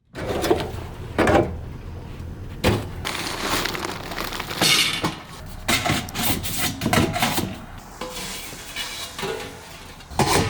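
Irregular knocks and clattering of hard objects being handled, a few sharper hits among them, with no steady machine running.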